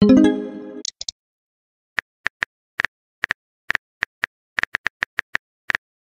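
Chat-app sound effects: a short pitched tone with many overtones fading over the first second, then a run of irregular sharp tapping clicks of simulated phone-keyboard typing.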